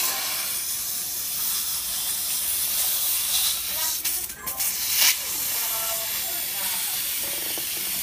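Dental air-water syringe spraying to rinse a tooth: a steady hiss, with a short sharp sound about five seconds in.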